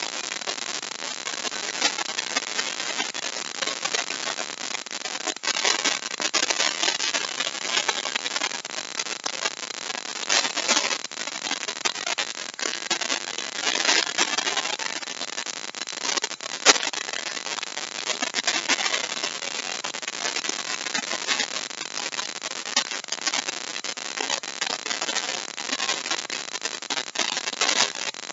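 Compact trim router running and cutting a mortise into hardwood: a steady rushing noise that swells and dips as the bit bites into the wood.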